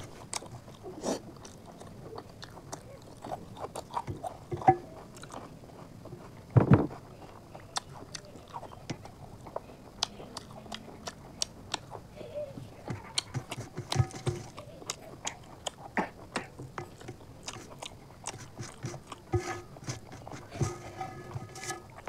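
Close-miked eating sounds: chewing and biting into chicken curry and rice eaten by hand, with irregular wet clicks and smacks. The loudest comes about seven seconds in.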